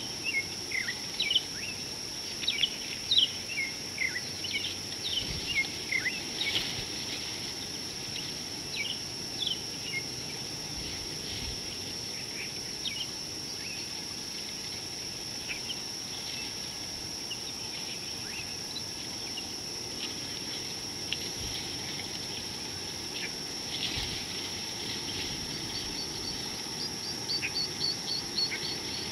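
Wild birds calling in the bush with many short, high, falling chirps, busiest in the first ten seconds and sparser after. Under them runs a steady high insect buzz. Near the end comes a quick run of high ticks, several a second.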